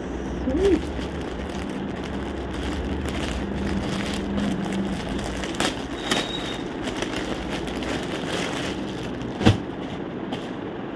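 Crinkling and rustling of a clear plastic packaging bag being handled and pulled open, with one sharp knock about nine and a half seconds in.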